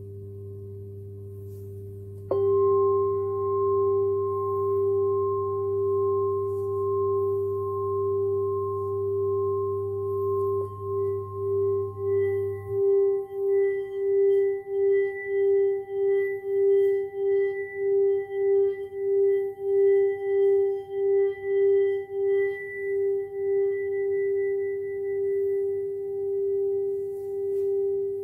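Gilded crystal singing cup in G ringing a steady, pure tone with faint higher overtones. It swells suddenly about two seconds in, as if struck again. From about halfway the tone pulses in loudness about twice a second, then evens out near the end.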